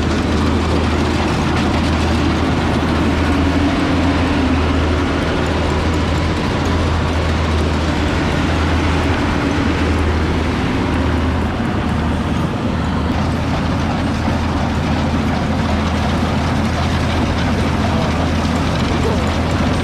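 Combine harvester running steadily in the field, a loud constant engine drone.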